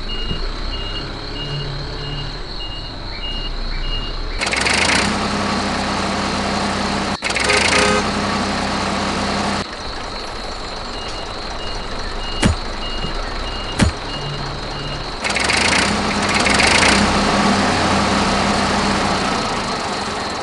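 A heavy vehicle's engine running, with a repeating reversing beep, about two or three beeps a second, heard twice. Loud bursts of hiss, like air brakes releasing, come about four, seven and fifteen seconds in, and two sharp clicks fall near the middle.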